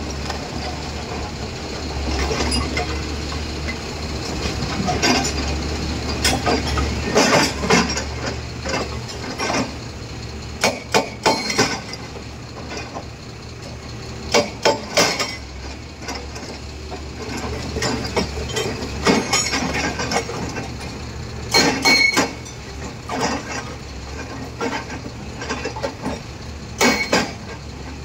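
Excavator engine running steadily while its hydraulic rock breaker strikes in short bursts of a few sharp, metallic blows, several times over.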